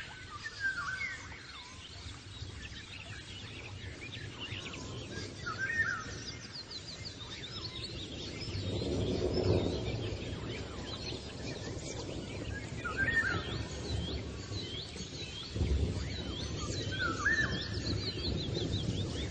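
Several birds chirping and calling, with many short, repeated high chirps. A low rushing noise swells about nine seconds in and again from about sixteen seconds.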